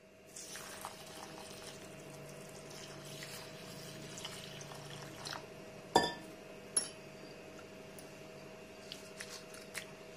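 Water pouring into a glass bowl of dry long-grain rice for washing, then a sharp click about six seconds in, and a few small splashes near the end as a hand swishes the rice in the water.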